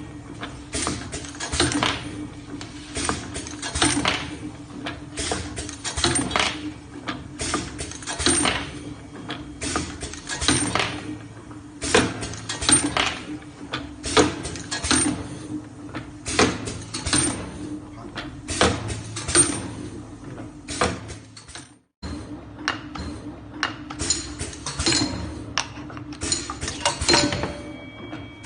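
Egg tart forming machine running: a steady motor hum under frequent metallic clanks and clinks, with a brief break about three quarters of the way through.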